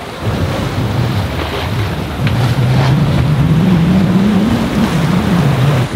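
Wind buffeting the microphone over the rush of water along the hull of a sailboat under sail in a stiff breeze. The low rumble swells about two seconds in and falls away just before the end.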